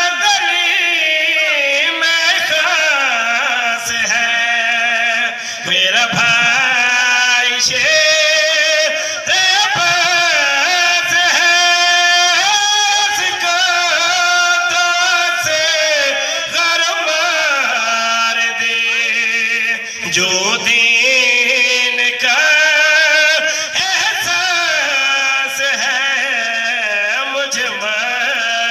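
A man chanting a qasida into a microphone, drawn-out melodic recitation with long held, wavering notes and brief breaks for breath.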